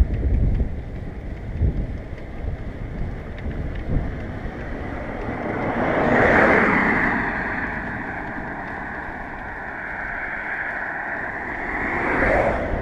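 Wind buffeting the microphone of a bicycle-mounted camera, with passing car noise that swells about halfway through and again near the end as an oncoming car goes by.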